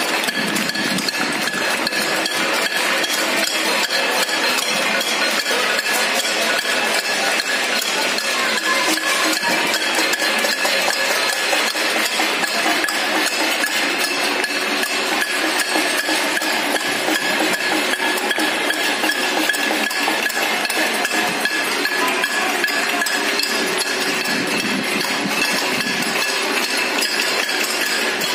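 Many residents clapping and banging metal plates and utensils, a dense continuous din of overlapping metallic clanks and claps, with steady ringing tones running through it.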